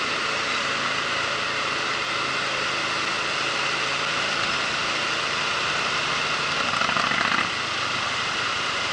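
Motorcycle ride: steady engine hum under heavy wind rush on the microphone, with a brief louder swell about seven seconds in.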